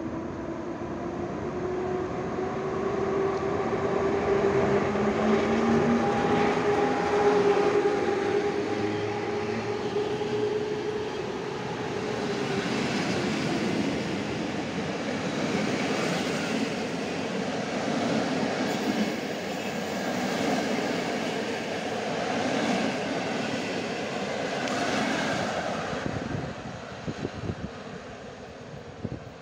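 PKP EP07 electric locomotive passing along a platform, hauling a train of passenger coaches. A whine slowly falls in pitch as the locomotive goes by, followed by the coaches' wheels rumbling and clattering over the rail joints, fading near the end.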